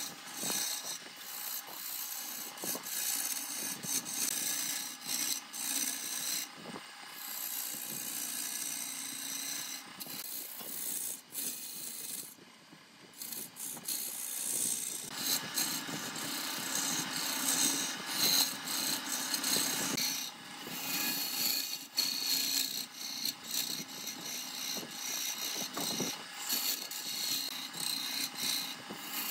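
Wood being worked with a tool: a continuous rasping, scraping hiss with scattered clicks, dropping off briefly twice.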